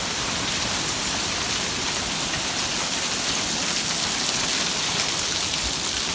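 Heavy desert monsoon downpour: dense, steady rain pouring down hard and loud.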